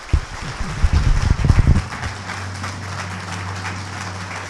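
Audience applauding. In the first two seconds, loud low thumps from the handheld microphone being handled, then a steady low hum under the clapping.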